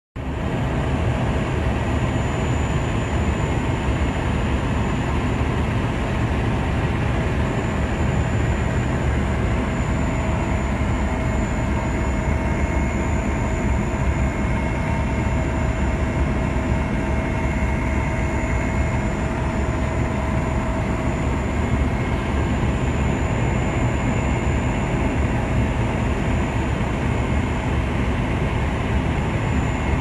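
Steady aircraft cabin noise: engine drone and rushing air heard from inside a flying aircraft, with a few faint constant whining tones over a deep rumble.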